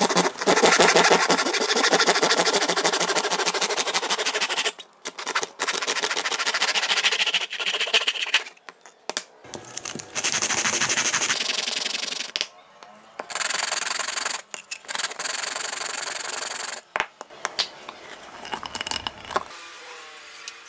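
Hand saw cutting through PVC pipe in quick strokes, then several separate bursts of a plastic speaker port tube being rubbed on sandpaper.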